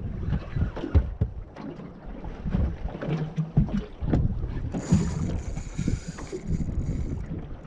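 Irregular low knocks and thumps on the hull of a small aluminium boat at sea, with wind buffeting the microphone.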